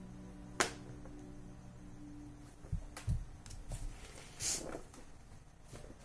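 Small handling noises: a sharp click about half a second in, then a couple of soft low knocks and a short rustle, over a faint low hum.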